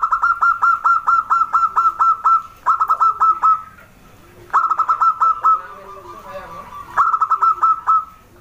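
Zebra dove (perkutut) calling in four bouts of rapid, clipped notes, about six a second, each note dropping in pitch. The first bout lasts about two and a half seconds and the later ones about a second each, with fainter, lower cooing notes in the gaps.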